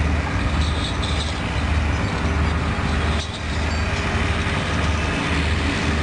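Loud steady machine hum with a low throb that pulses about one and a half times a second, over a constant hiss; it dips briefly about three seconds in.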